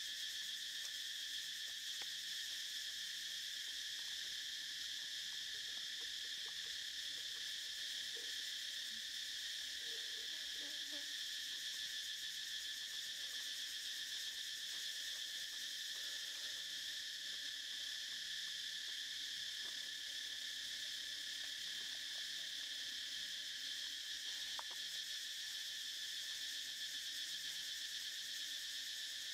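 Steady, unbroken insect chorus, a continuous high-pitched buzzing drone of many insects at constant level.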